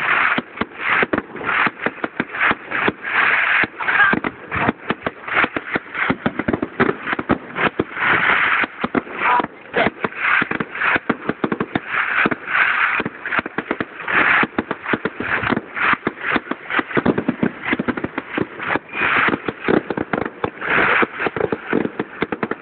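Fireworks display: a rapid, unbroken run of sharp bangs and crackling, many explosions a second.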